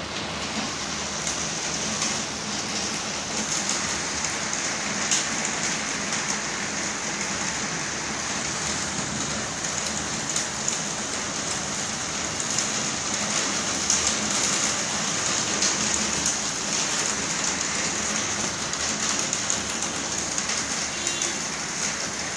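Torrential rain pouring down steadily: a dense, even hiss with the fine crackle of many drops striking nearby surfaces.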